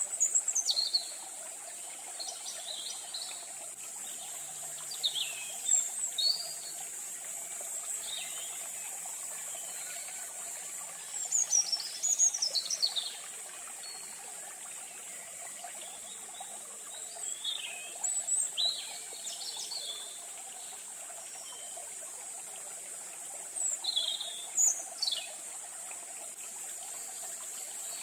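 Small birds chirping in short bursts of quick falling notes every few seconds, over a steady high-pitched insect drone.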